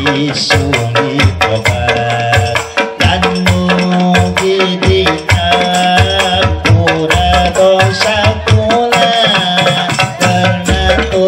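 Ensemble of hand-struck frame drums (rebana) with jingling tambourines playing a busy, driving rhythm, while a man sings through a microphone over it.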